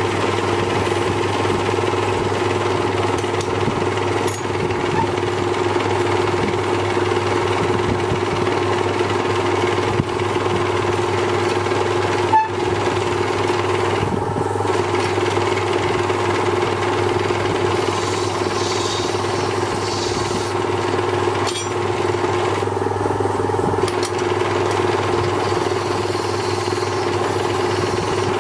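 Small electric lathe running with a steady hum while a hand-held cutting tool shapes a spinning ebonite pen barrel, with a single sharp click about twelve seconds in.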